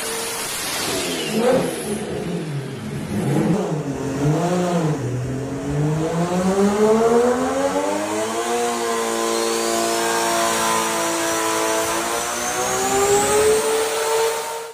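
Freshly rebuilt engine being revved: the pitch swings up and down several times, then climbs and holds at a steady high rev for several seconds before cutting off abruptly.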